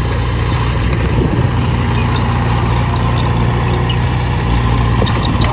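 Heavy earthmoving machine's engine running steadily with a low hum.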